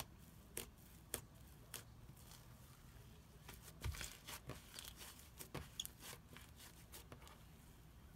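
Floam slime, slime packed with tiny foam beads, being poked, squeezed and pulled apart by hand: quiet, irregular crunchy crackles and pops, thickest in the middle and thinning out near the end.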